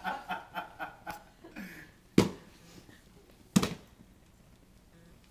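Laughter trails off, then two sharp smacks about a second and a half apart.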